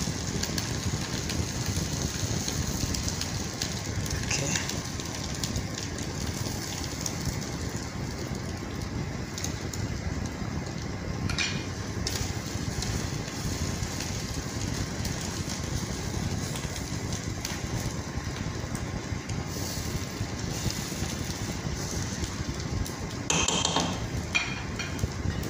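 Chips mayai (egg and potato chips omelette) frying in a pan: a steady hiss, with a few brief clicks, the loudest cluster near the end.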